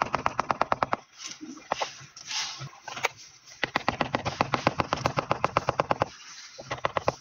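Rubber mallet tapping a small ceramic insert tile in quick runs of light knocks, about eight a second, bedding it flush into the tile adhesive. The tapping pauses for about two and a half seconds after the first second and briefly again near the end.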